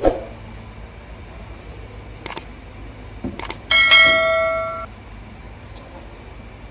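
A metal object clangs and rings out for about a second, a bright ringing with many tones that dies away. It follows a dull thump at the start and a few light metallic clicks.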